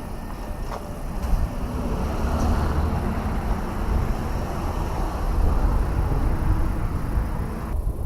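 Street traffic: a motor vehicle passes, its noise swelling for a few seconds in the middle and fading again over a steady low rumble.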